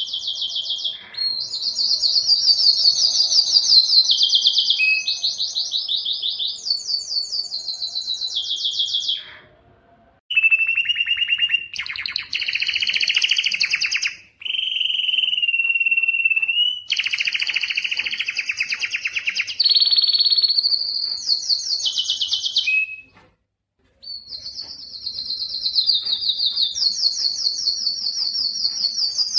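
Spanish timbrado canary singing: long runs of rapid rolled trills that switch pitch from phrase to phrase. The song breaks off briefly about ten seconds in and again about two-thirds of the way through.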